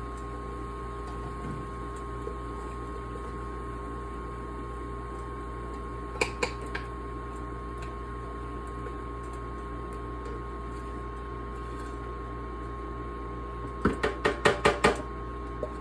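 Steady kitchen hum, with a brief clink about six seconds in and a quick run of about six knocks and clatters near the end, as pans are handled to drain the fried potatoes of grease.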